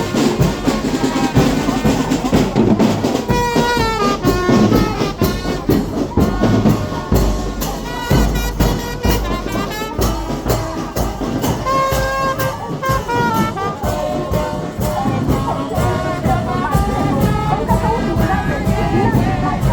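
Music with a brass melody, trumpet-like, over steady drumming.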